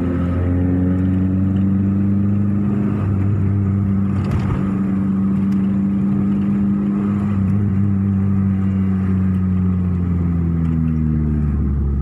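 Car engine and exhaust heard from inside the cabin while driving, a steady droning note that holds for most of the time and drops in pitch near the end as the car eases off.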